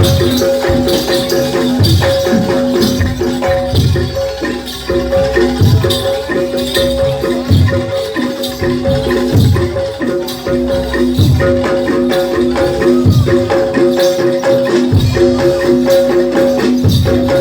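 Live gamelan music for a jaranan horse-trance dance: ringing metallophone tones held over heavy low drum or gong beats about every two seconds.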